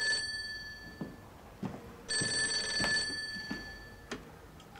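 Vintage rotary-dial desk telephone ringing: one ring ends just after the start and a second ring of about a second comes about two seconds in, with a few faint knocks between the rings.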